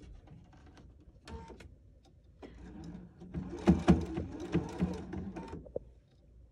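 Husqvarna Viking sewing machine running for about three seconds, stitching binding fed through a binder attachment onto the edge of a dress, with two louder knocks partway through.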